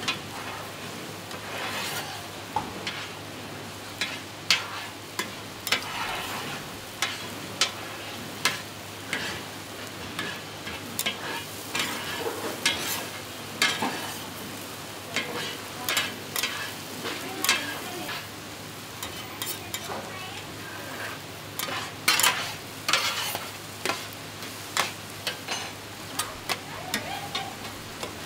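Eggs sizzling as they are scrambled in large black pans, a metal spatula scraping and clacking against the pan in irregular strokes, over a steady low hum.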